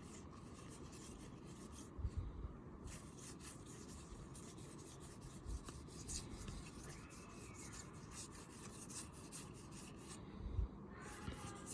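Trading cards being handled: soft rubbing and sliding of card stock as a stack is flipped through, with a few light taps.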